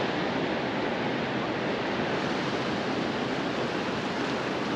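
Ocean surf washing onto the beach, a steady rush of breaking waves.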